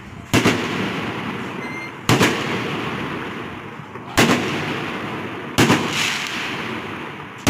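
Fireworks bursting: four loud bangs about one and a half to two seconds apart, each trailing off over a second or more.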